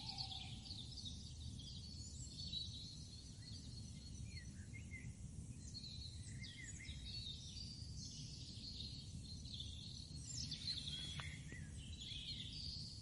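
Several birds chirping and trilling over a steady low background rumble.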